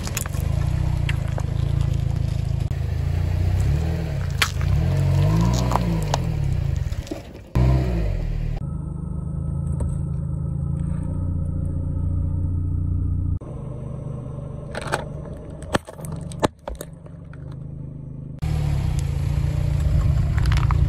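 A car engine running at low speed while a tyre slowly rolls over and crushes packaged foods, with sharp cracks and pops as a plastic yoghurt cup and a carton burst. The engine note rises and falls once or twice, and the sound changes abruptly a few times between takes.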